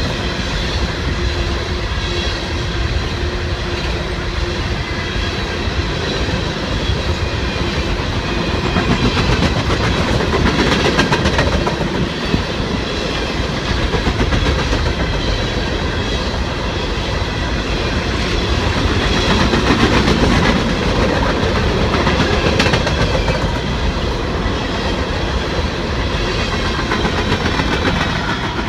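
Loaded-or-empty coal hopper cars of a freight train rolling steadily past on the rails, wheels clicking over the rail joints, with a faint high whine over the rumble.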